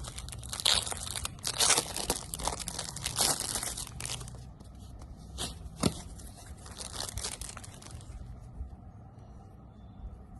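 Packaging being torn open and crinkled by hand: a run of rustling, tearing noises, with a sharp click about six seconds in, then quieter handling.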